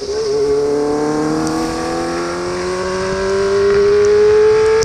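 Kawasaki ZX25R's 249 cc inline-four running through an Austin Racing aftermarket exhaust, pulling in gear under throttle with its revs climbing slowly and steadily.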